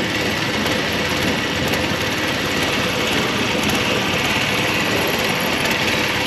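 Motorboat engine running steadily under way, with a steady hiss over the top.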